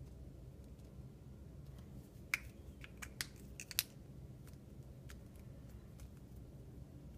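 Small handling clicks from a felt-tip marker and the object being coloured: a handful of short, sharp clicks and taps clustered about two to four seconds in. The first and last clicks are the loudest, over a steady low hum.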